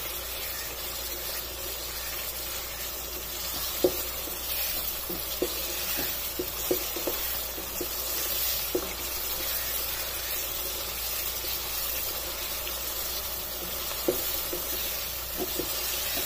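Mutton in a yogurt gravy sizzling steadily in a nonstick karahi, stirred with a wooden spatula that knocks and scrapes against the pan now and then. The meat is being fried down (bhuna) so that the yogurt's water cooks off and the oil separates.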